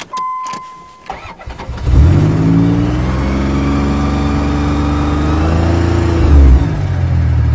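A 1989 Dodge Caravan's 3.0-litre V6 is cold-started after sitting unused for about four months. A steady warning chime sounds for about a second, then a brief crank, and the engine catches about two seconds in. It runs at a fast idle of around 3000 rpm with a short rise in revs just after six seconds, and the owner notes a little valve tick in it.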